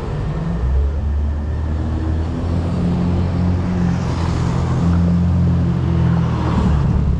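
Engine of a tuk tuk running close by with a steady, low, even-pitched drone, over the noise of passing road traffic.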